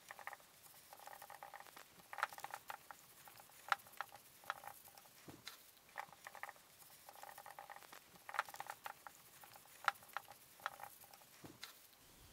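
Cloth rag rubbing furniture wax into a wooden chair frame: faint, repeated short scrubbing strokes with rustling and light clicks.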